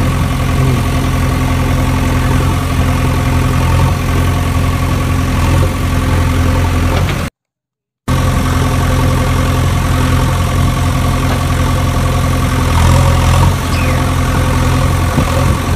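Engine idling steadily, a low, even running sound, cut off completely for under a second about seven seconds in before resuming unchanged.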